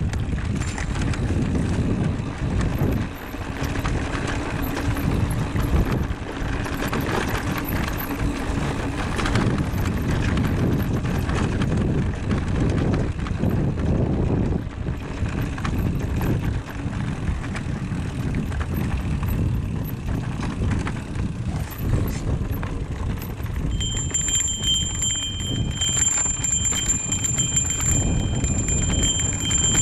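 Cannondale Habit Neo electric mountain bike rolling down a rough dirt trail: knobby tyres crunching and the bike rattling and clattering over rocks and ruts. A steady high squeal sets in near the end and holds.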